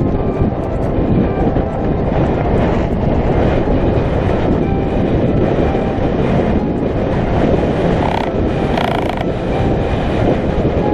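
Mountain bike riding fast down a dry dirt and gravel track: a steady rush of wind on the action camera's microphone, with tyre noise and the bike rattling over the bumps.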